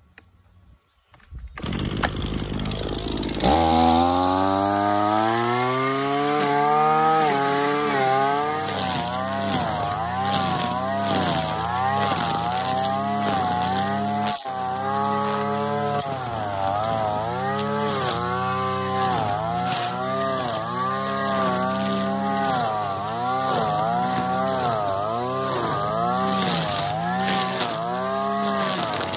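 Shindaiwa two-stroke string trimmer with a Speed Feed head cutting weeds. Its engine comes in about a second and a half in and revs up over the next two seconds. After that the engine speed rises and falls about once a second as the throttle is worked.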